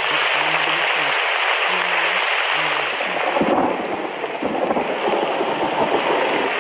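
Recorded rain sound effect: steady, heavy rain hiss that shifts in texture about halfway through.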